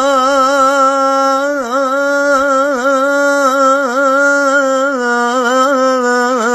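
One voice singing an Urdu naat, holding a long melismatic note with wavering ornaments and small dips in pitch. No instruments are heard.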